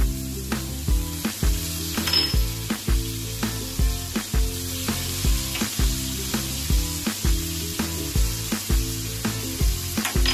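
Chicken livers and giblets sizzling in a frying pan, under background music with a steady beat.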